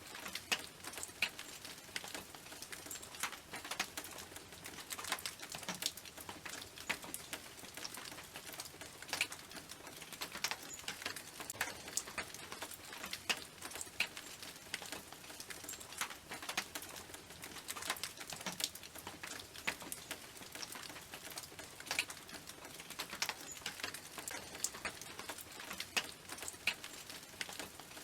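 Rain on a tin roof: irregular drops ticking and pattering on the metal over a steady hiss.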